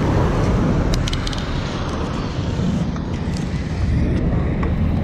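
Steady engine and road noise from a moving vehicle in city traffic, with a quick cluster of faint clicks about a second in.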